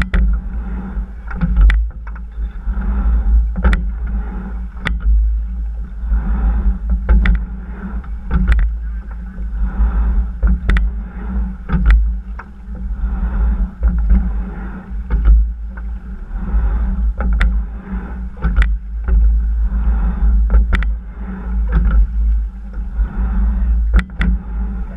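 Sculling boat being rowed at a steady pace: the oars clack in their gates twice each stroke, a stroke about every three and a half seconds. Underneath are a steady rush of water along the hull and a low rumble.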